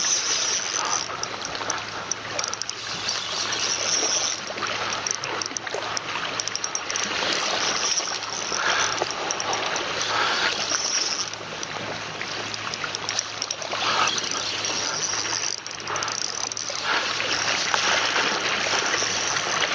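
Seawater washing and splashing over the rocks at the water's edge, swelling and easing in surges, with a faint steady low hum underneath.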